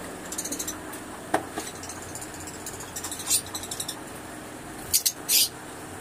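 Lovebirds chirping: several short bursts of rapid, high-pitched chatter, with two sharp, loud calls about five seconds in.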